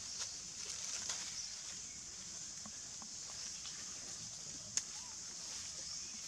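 Outdoor ambience: a steady high-pitched hiss with scattered light rustles and clicks as macaques move over a log and dry leaves, and one sharper click about three-quarters of the way in.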